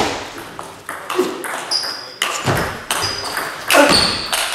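Table tennis rally: the ball clicking off the rackets and bouncing on the table in quick succession, the sharp ticks echoing in a large hall.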